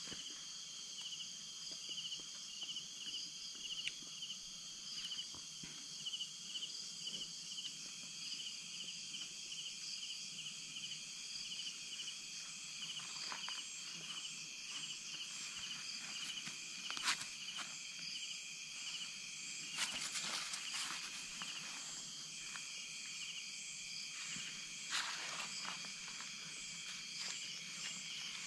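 Night insects trilling steadily at several high pitches, one trill pulsing rapidly. A few brief rustles or crackles break in, the loudest about 17 and 20 seconds in.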